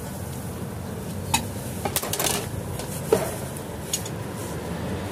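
A handful of light clinks and knocks of tableware, spaced about a second apart, some with a brief ring, over a steady street-stall background hum.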